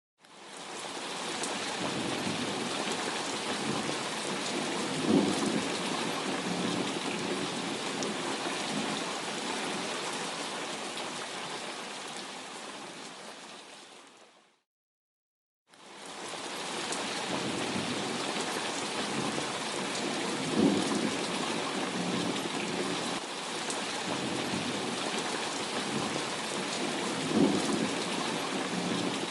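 Steady heavy rain with three short rolls of thunder. The rain fades out about halfway through, stops for a second, and fades back in.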